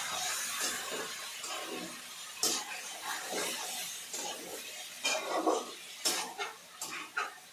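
Chicken pieces sizzling in hot oil in a kadhai, the hiss easing off over the first couple of seconds, with a few sharp knocks and scrapes of a utensil against the pan.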